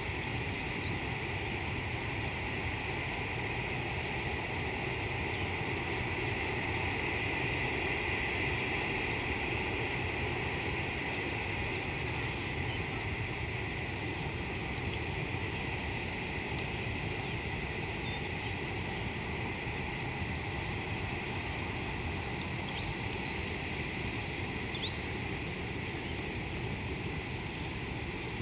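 Steady outdoor ambience: an even hiss and low rumble with a constant high-pitched buzz over it, and a couple of faint short chirps about three-quarters of the way through.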